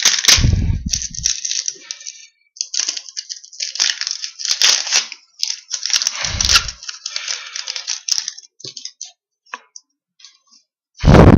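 Foil trading-card pack wrapper being torn open and crinkled, with cards being handled and shuffled: repeated rustling and crackling with small clicks, and two dull thuds, one near the start and one about six seconds in.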